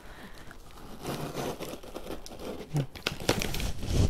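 Packaging crinkling and tearing as a parcel is opened by hand, with a few light knocks near the end.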